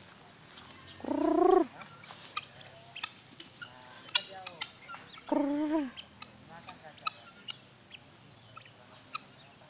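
A mixed flock of guineafowl and peafowl calling. There are two loud, drawn-out calls, about a second in and about five seconds in, with soft short chirps and clicks in between.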